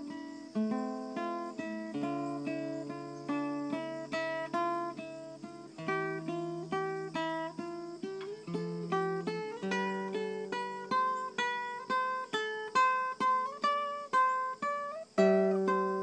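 Nylon-string classical guitar played solo and fingerpicked: a running line of plucked notes over held bass notes, in a variation on a theme taken from an Australian bird's cry. The plucked notes grow louder and more accented in the second half, with a short break just before a strong chord near the end.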